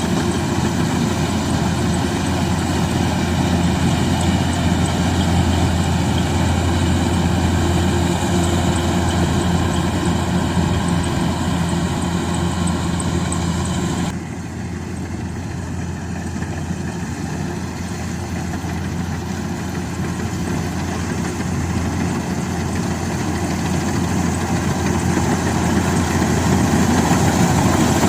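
Rice combine harvester's engine running steadily at working speed. About halfway through, the sound changes abruptly as its higher part drops away and it gets quieter, then it grows gradually louder toward the end.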